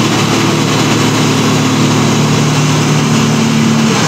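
Diesel engine of a large mining haul truck running steadily while its bed is raised to tip coal, its pitch dropping slightly near the end.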